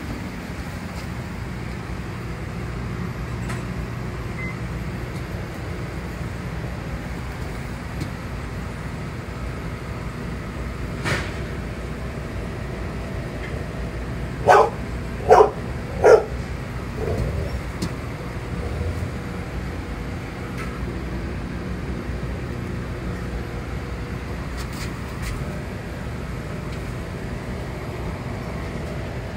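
Steady hum of aquarium equipment in a coral quarantine vat room. About halfway through, three short, loud barks come in quick succession.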